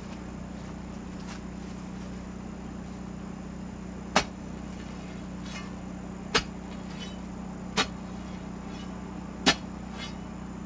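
A steel digging bar stabbed down into the ground four times, about one and a half to two seconds apart, each strike a sharp thunk with a short metallic ring, over a steady low hum.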